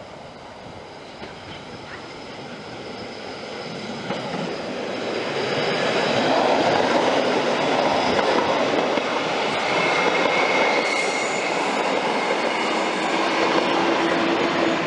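Red Rhaetian Railway electric train rolling past close by at low speed, its rolling noise building over the first six seconds and then holding steady. Brief squealing tones from the wheels come in the second half as the coaches and the electric locomotive go by.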